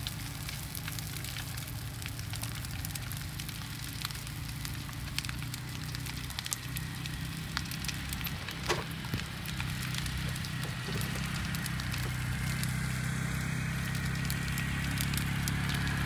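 Large brush-pile bonfire burning, crackling steadily with scattered sharp pops and one louder pop about nine seconds in. A low steady rumble runs underneath and grows louder near the end.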